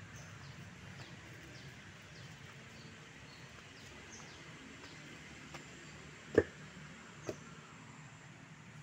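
Two footsteps knocking on wooden bridge planks, a little under a second apart, the first much louder. Faint high bird chirps repeat over a steady outdoor background.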